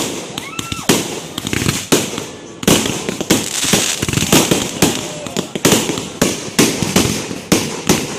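Fireworks going off in rapid succession: many sharp bangs, several a second, over a continuous crackling hiss.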